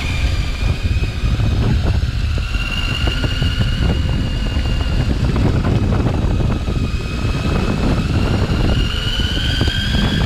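CYC X1 Pro mid-drive e-bike motor whining under throttle. The pitch holds steady, then rises over the last couple of seconds as motor speed climbs. Heavy wind rumble on the microphone runs underneath.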